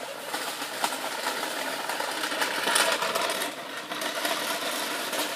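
Ride-on toy tractors with plastic wheels rattling and clattering over dry dirt and leaves as they race past, loudest about three seconds in.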